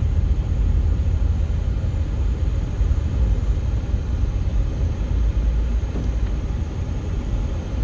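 Steady low rumble of a vehicle on the move, with road and wind noise and no distinct events.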